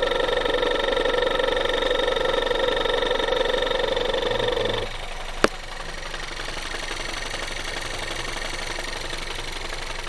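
Skoda engine idling with a knock from its high-pressure fuel pump. A steady tone runs over it and cuts off about five seconds in, followed by a single sharp click.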